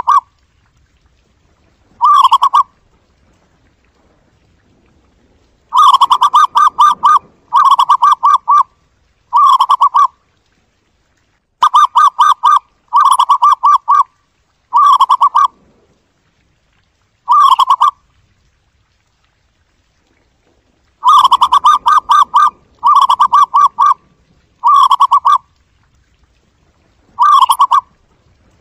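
Zebra dove calling: about a dozen bursts of rapid, trilling coos, each lasting about a second, repeated with pauses of one to three seconds between them.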